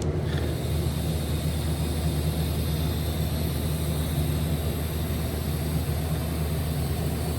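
Steady hum with an even hiss from a running electric machine.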